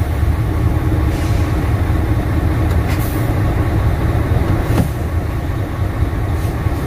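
Car-transporter truck's engine idling with a steady low rumble, with a couple of brief light ticks partway through.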